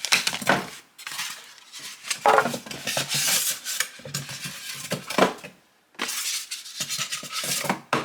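Parts and packaging being handled and taken out of the box of a grain mill attachment: rustling and clattering with sharp clinks, in several irregular bursts with short pauses between them.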